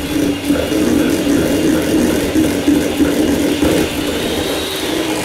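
Electric hand mixer running steadily, its wire beaters whisking egg, sugar, butter and vanilla batter in a stainless steel bowl, with an even motor whir.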